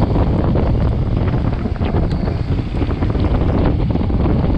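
Wind rushing over a helmet- or bike-mounted action camera's microphone while a motorcycle rides along, a steady loud buffeting with the bike's engine and tyres underneath.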